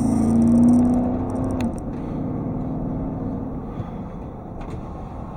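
Car engine accelerating, its pitch rising and loudest about a second in, then easing off before two seconds in to a steady low rumble.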